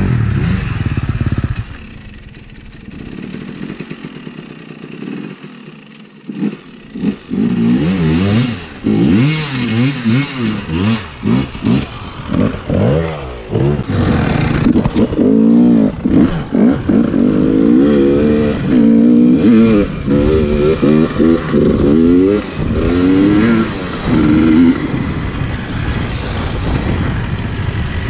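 Trail bike engine revving. It runs quieter for the first few seconds, then the engine pitch repeatedly climbs and drops as the throttle is worked on and off.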